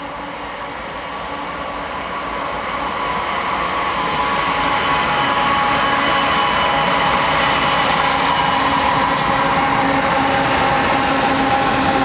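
Diesel-electric locomotives at the head of a CSX freight train approaching and passing, growing louder over the first few seconds and then running steady, with a steady engine drone and whine. By the end, the freight cars are rolling by.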